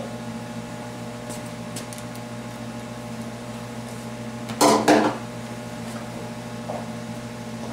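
Compression tester gauge snapping onto its hose with the quick-disconnect coupler: a short double clack a little past halfway through, over a steady electrical hum.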